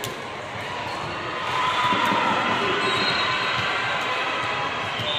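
Spectators cheering and shouting at a youth volleyball match in a gym, swelling about a second and a half in. A single sharp smack right at the start.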